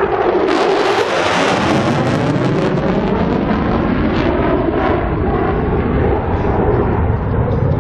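Fighter jet passing overhead: a loud jet roar with slowly sweeping tones, brightest about a second in and then growing duller as it moves away.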